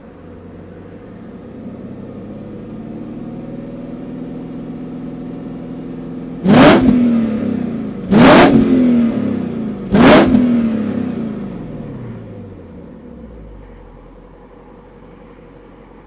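BMW M62B44TU 4.4-litre V8 on its stock exhaust, heard at the tailpipe: the revs rise gently and hold, then three sharp throttle blips come about two seconds apart, each falling back, before the engine settles to idle near the end.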